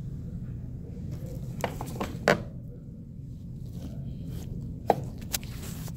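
Several sharp metallic clicks and clinks as a socket wrench and its socket are handled, the loudest a little past two seconds in and another near five seconds, over a steady low hum.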